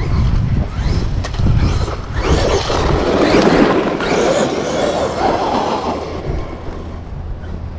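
Arrma Outcast 8S electric RC truck driving over rough, rocky ground strewn with debris: motor whine rising and falling with the throttle, mixed with tyre and rattle noise, loudest in the middle.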